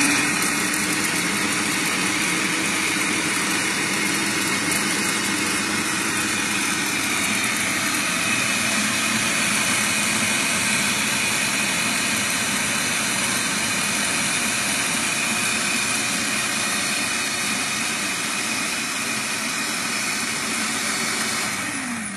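Electric food processor running steadily, chopping basil, garlic and pine nuts into pesto. The motor comes up to speed at the start, then near the end it is switched off and its hum falls in pitch as it spins down.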